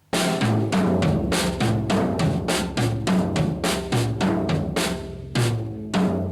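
Drum kit playing a steady beat: bass drum, snare and cymbals striking about three to four times a second, starting abruptly just after the start.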